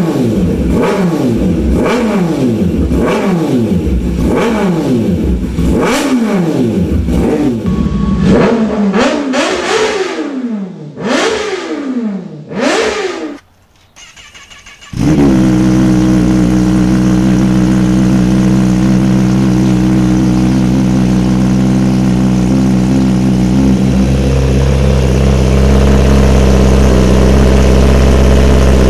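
Kawasaki ZX-10R inline-four through an Arrow slip-on exhaust, revved in quick throttle blips about once a second, the pitch climbing sharply and dropping back, with a few higher revs near the middle. After a brief near-quiet break, another ZX-10R with an M4 GP exhaust idles steadily, its low rumble getting louder for the last few seconds.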